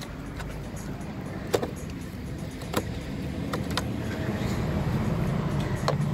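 A Ford Fiesta's rubber intake hose is worked off and its plastic MAF sensor housing is lifted out, giving four or five sharp plastic clicks and knocks. Underneath runs a steady low rumble that grows louder over the last couple of seconds.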